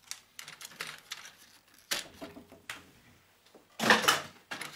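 Plastic housing and parts of an office telephone being handled and pulled apart by hand: scattered clicks and taps, with a louder scraping clatter about four seconds in.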